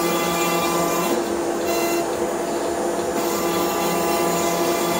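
CNC router spindle running steadily as its cutter surfaces a spoiler board, a steady whine over a hiss of cutting. The high hiss drops away for about two seconds partway through, then returns.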